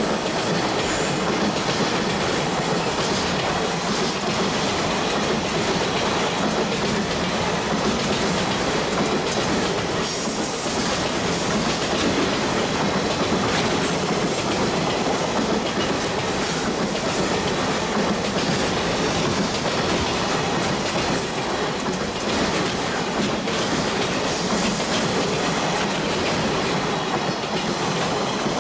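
Freight train hauled by an EF66 electric locomotive rolling past close by: a steady rumble with wheels clattering over rail joints, and brief faint high wheel squeals a few times.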